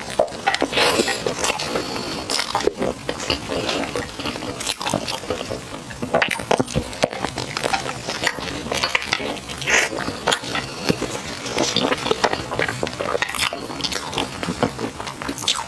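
Close-miked eating of fried glutinous rice food: a continuous run of small wet, crackly mouth and chewing clicks.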